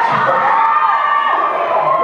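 Audience of school students cheering and shouting, many voices at once.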